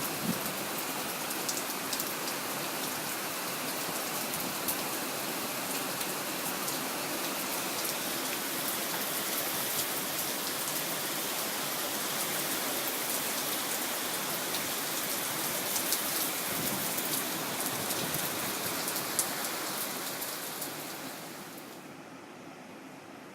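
Steady monsoon rain falling, a dense hiss dotted with sharp individual drop hits. It fades down near the end.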